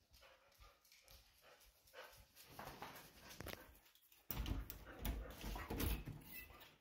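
Australian shepherds moving about close by on a tiled floor, with scattered light clicks. About four seconds in comes a sudden, loud, rumbling rustle right at the microphone, lasting about two seconds.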